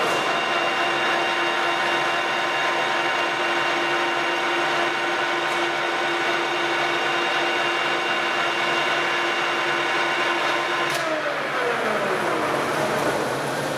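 Colchester Master lathe running with the thread-cutting feed engaged, its headstock gears and leadscrew giving a steady whine as the carriage travels to the right. About eleven seconds in there is a click and the machine winds down, the whine falling in pitch as the spindle slows.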